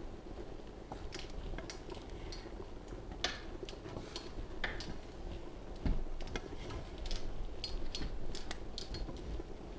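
A wooden spoon scraping and knocking against a pan as rice is stirred while it reheats, in irregular clicks and scrapes with one louder knock about six seconds in, over a steady low hum.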